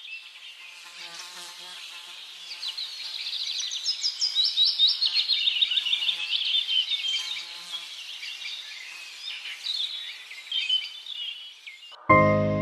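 Many small birds chirping and twittering together in quick, overlapping calls, busiest in the middle, with a faint insect hum under them. Soft background music comes in suddenly near the end.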